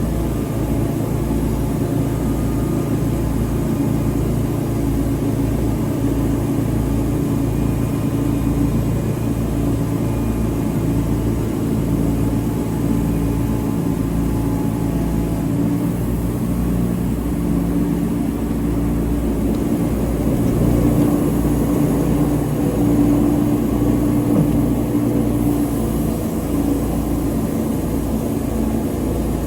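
An engine running steadily under load, its drone swelling slightly about twenty seconds in.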